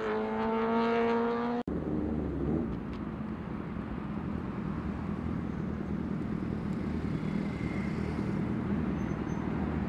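A sport bike's engine held at high revs, its pitch creeping up, cut off suddenly about a second and a half in. Then the low, uneven rumble of Suzuki Hayabusa inline-four engines at low revs as the bikes roll slowly.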